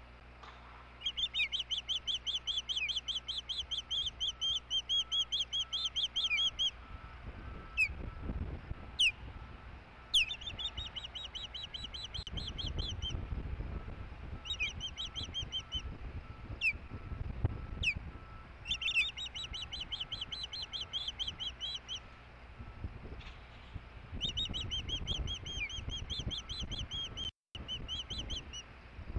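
Osprey calling: long runs of rapid, high, whistled chirps, several a second, broken by single sharp down-slurred notes. An uneven low rumble sits underneath.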